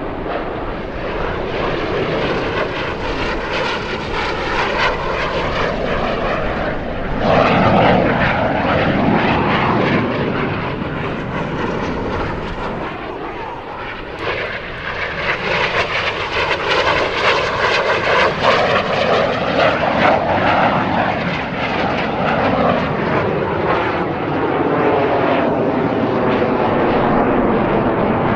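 CT-114 Tutor jet trainers flying past, their single turbojets making a steady jet rush whose pitch sweeps up and down as they go by. It swells loudest about seven seconds in, and again through the second half.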